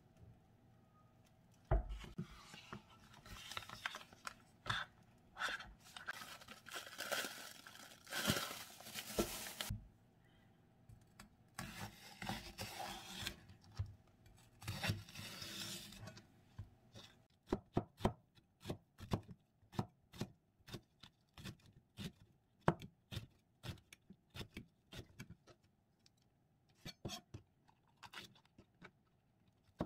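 Rustling and scraping as ingredients are handled in the first half, then a santoku knife chopping a Korean leek on a plastic cutting board, sharp strokes of about two to three a second from a little past halfway on.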